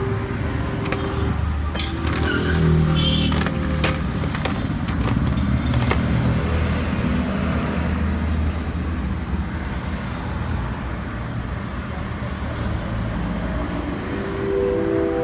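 Engine running steadily, with a few short clicks and knocks in the first several seconds.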